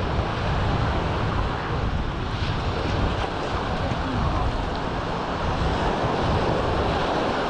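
Wind buffeting the microphone over the steady wash of sea surf, with faint distant voices now and then.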